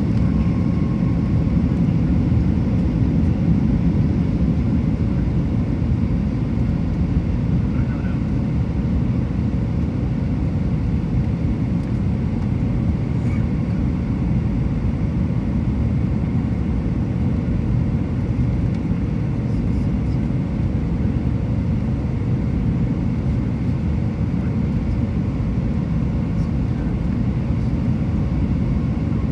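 Steady cabin noise inside an Airbus A320-232 on approach: a low rumble of rushing air and its IAE V2500 turbofan engines, with a faint steady hum.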